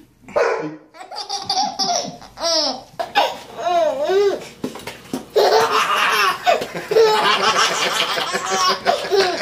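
A baby laughing hard in repeated belly laughs. The laughter comes thickest over the second half.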